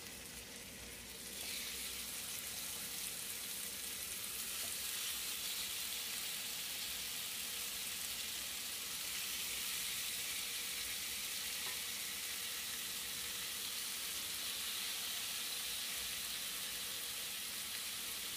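Marinated lamb chops sizzling in a hot oiled grill pan as they are laid in one by one; the steady hiss of frying grows louder about a second in and then holds.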